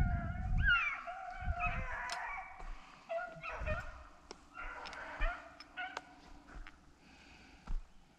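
Rabbit-hunting hounds baying in drawn-out, overlapping bouts with short gaps: the sound of dogs running a rabbit's trail.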